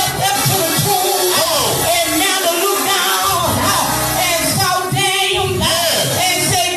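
Church worship music: singing over instrumental accompaniment.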